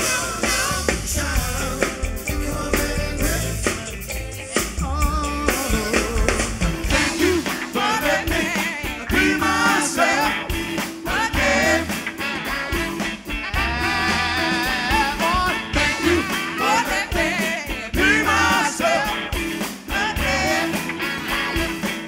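Live soul-funk band music: a bass-heavy groove for the first several seconds, then a change to another song with a lead singer over guitar and a full band.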